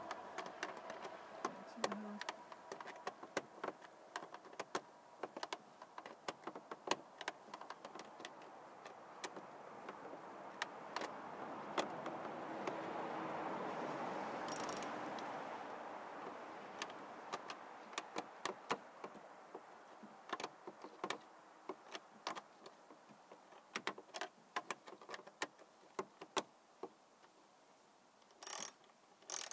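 A screwdriver turning the screws of a 2012 Ford Focus's plastic air-filter housing cover, giving many small irregular clicks. A broad hiss swells and fades around the middle.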